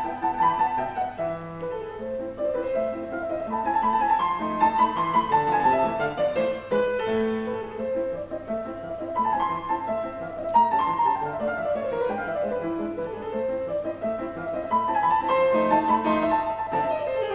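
Solo piano music: a fast piece with quick runs of short notes.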